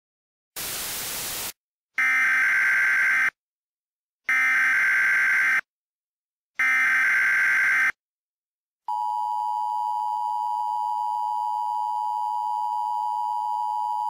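A short burst of static, then the three data bursts of an Emergency Alert System SAME header, each a rough warbling squawk just over a second long. About nine seconds in, the EAS attention signal begins: a steady two-tone beep that keeps sounding to the end.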